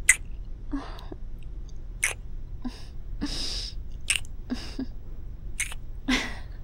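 Rummaging through things while searching for something: a series of short rustles with a few sharp clicks, roughly one a second.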